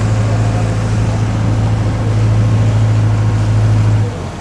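A ferry's engine droning steadily under way, a strong low hum over a broad rushing noise. The hum drops away sharply near the end.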